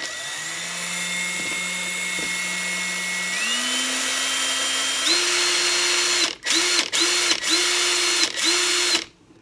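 Ryobi 3-speed hex impact driver running free with no load, a steady motor whine that steps up in pitch twice as it moves from the low speed setting to the high one. In the last few seconds the trigger is released and pulled again in quick short bursts, about five times, before it stops.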